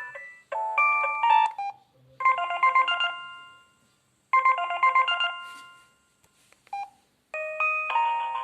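Preloaded synthesized ringtones and message tones of a Samsung SGH-C450 mobile phone playing one after another with short gaps. A brief phrase is followed by a short jingle played twice, each time dying away. A new melody starts near the end.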